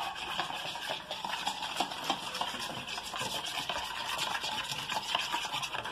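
Metal spoon stirring a liquid seasoning mix briskly in a bowl, scraping and ticking rapidly against the bowl's sides.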